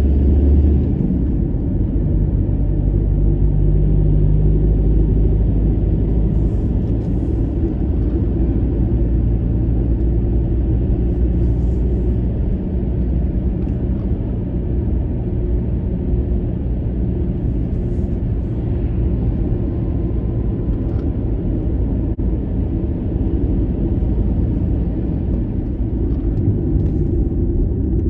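1998 Volkswagen Passat 1.9 TDI's four-cylinder turbodiesel engine and tyres heard from inside the cabin while driving, a steady low rumble.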